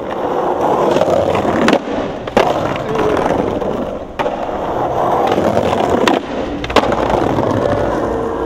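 Skateboard rolling with a steady wheel rumble, broken by five sharp clacks of the board striking the ground, two close together near the start and two more near the end.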